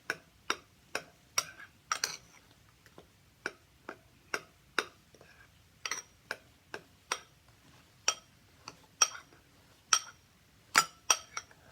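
A spoon clinking against a bowl while stirring a paste: short, irregular ringing clicks, a couple a second, with two brief pauses.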